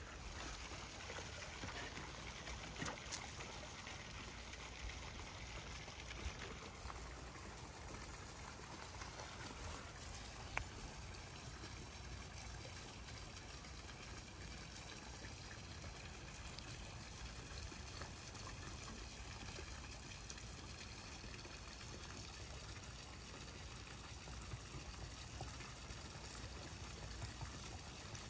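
Faint, steady outdoor background hiss with a few soft knocks.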